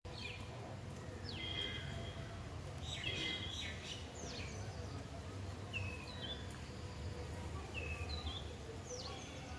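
Birds calling outdoors: a scattered string of short chirps, each dropping in pitch, some coming in quick pairs, over a steady low rumble.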